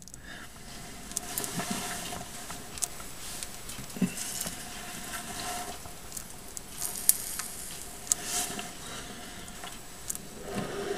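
Faint rustling and scraping with scattered small clicks, the sharpest about seven seconds in: a corn snake's coils shifting as it constricts a mouse on a carpet substrate.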